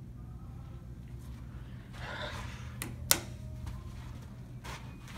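Schindler 330A hydraulic elevator at the landing, its doors starting to work: a steady low hum, a rustle about two seconds in, then a sharp click just after three seconds.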